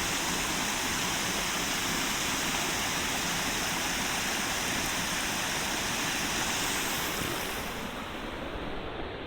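Waterfall rushing steadily, an even roar of falling water; from about eight seconds in the sound turns duller and a little quieter.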